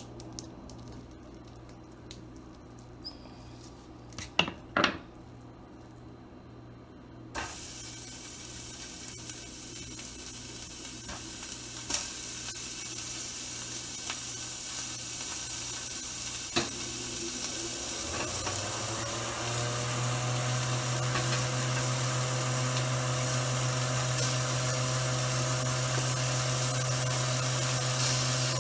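Raw ground beef sizzling in a hot pan: a steady hiss starts suddenly about a quarter of the way in and grows louder as more meat goes in. A few seconds past the middle, a fan motor spins up with a rising whine and then holds a steady hum under the sizzle.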